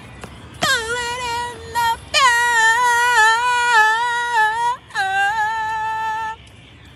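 A woman's voice singing long, high held notes without words, in three phrases with a slight waver. It starts about half a second in, breaks briefly twice, and stops suddenly a little after six seconds.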